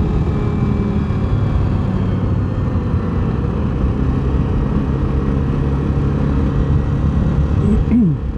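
Access Shade 850 Xtreme quad's engine running steadily on the road, mixed with wind rushing over a helmet-mounted microphone. Near the end a tone falls sharply in pitch as the revs drop.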